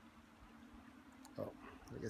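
Nearly quiet, with a faint steady low hum, and a few faint small clicks in the second half as small pliers are worked on thin fishing line. A short vocal sound comes about one and a half seconds in.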